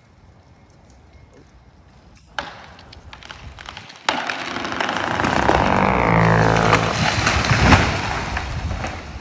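A felled tree going over: a sharp crack a little over two seconds in, then from about four seconds a loud rush of branches tearing through the air and crashing down, with a few hard knocks at its peak, dying away near the end.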